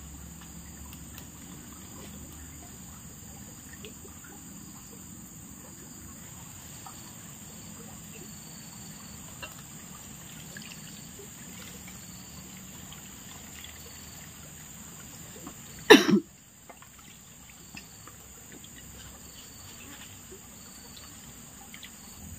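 Steady insect chorus: a continuous high buzz with faint short chirps repeating over a low background hiss. About two-thirds of the way through comes one loud, brief, sharp knock with a short ring.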